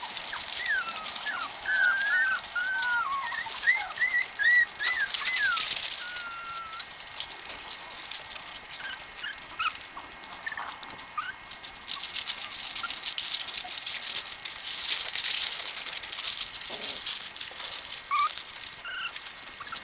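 Miniature schnauzer puppies whimpering: many short, high squeaks and whines, thick in the first six seconds and scattered after, over a steady hiss.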